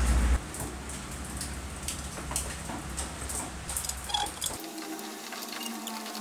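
A low rumble that cuts off abruptly just after the start, then small scattered metallic clicks and scrapes of a screwdriver working a screw on the drill's cast side handle.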